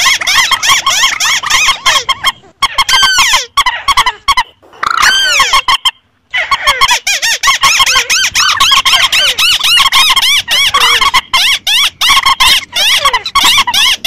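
Mixed lure recording of rail calls (slaty-breasted rail, white-browed crake and purple swamphen): a dense run of rapid, repeated squeaky chirping notes from several birds overlapping, breaking off briefly around two and a half, four and a half and six seconds in.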